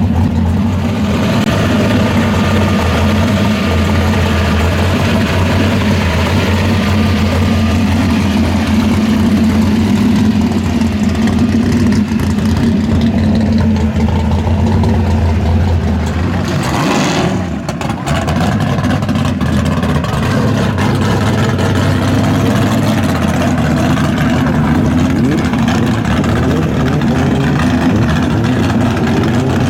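A V8 muscle-car engine idling steadily and loudly, with a brief change in its sound about halfway through.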